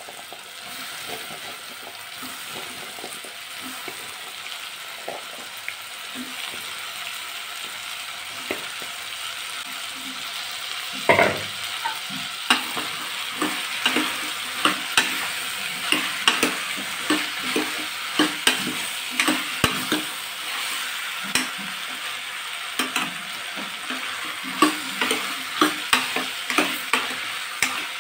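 Onions, tomatoes and cubes of elephant foot yam sizzling in oil in a pressure cooker. About a third of the way in, a metal ladle starts stirring them, knocking and scraping against the pot again and again over the sizzle.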